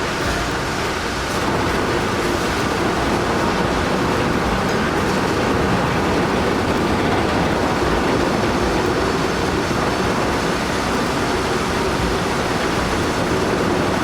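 Steady rumble of a heavy vehicle running, with no clear change in pace.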